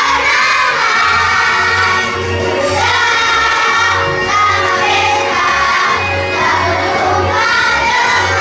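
Children's choir singing over a musical accompaniment with a regular low bass beat.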